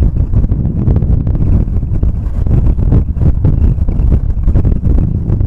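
Wind buffeting the microphone of a moving motorbike, a loud, unsteady low rumble with the bike's running and road noise underneath.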